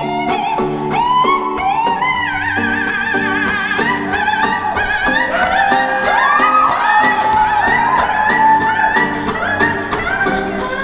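A woman singing long, wavering, sliding notes over strummed guitar chords, in a live solo performance.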